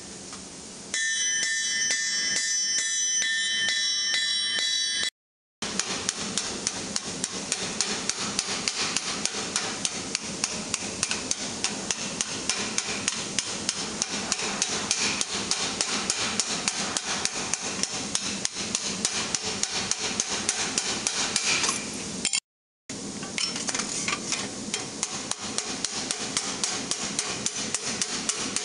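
Steel hammer blows on red-hot sheet steel, struck rapidly and evenly at about four a second as the gauntlet plate is raised over a stake. In the first few seconds the blows carry a bright, steady ring.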